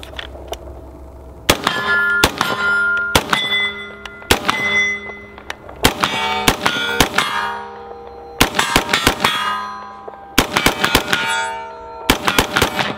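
Bear Creek Arsenal side-charging AR-15 firing .223 in quick strings of shots, with steel targets clanging and ringing after the hits. The first shot comes about a second and a half in, and the ringing fades in the gaps between strings.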